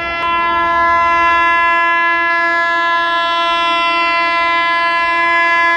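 ALCo diesel locomotive's air horn held in one long, steady blast, several tones sounding together as a chord.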